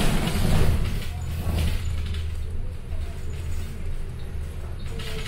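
City bus driving, heard from inside the cabin: a steady low engine drone with tyre and road noise from the wet road, and a louder rush of noise right at the start.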